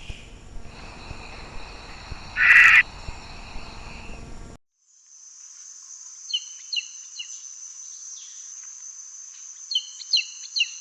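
Crickets and other insects chirring in steady high tones, with one short harsh screech about two and a half seconds in, the loudest sound. After a brief gap, a higher steady insect trill carries on under a small bird's quick chirps in two short clusters.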